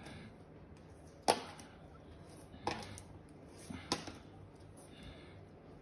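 Hard plastic graded-card slabs clacking against each other as they are handled and sorted in a case: a few sharp clicks spaced a second or so apart, the first the loudest.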